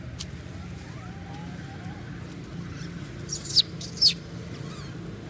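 Two short, high-pitched squeals from a baby macaque at play, each falling in pitch, about half a second apart a little past the middle, over a steady low hum.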